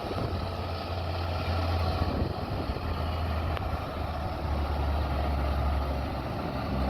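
Diesel engine of a Sitrak G7 540 heavy truck hauling six excavators up a mountain pass, running as a steady low drone.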